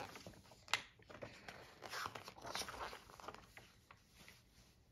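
Faint rustling and light clicks from handling the pages of a paper catalog.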